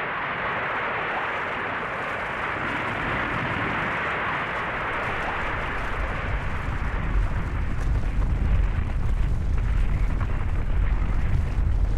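Avalanche of snow and rock: a steady rushing hiss that, about halfway through, gives way to a deep rumble growing louder.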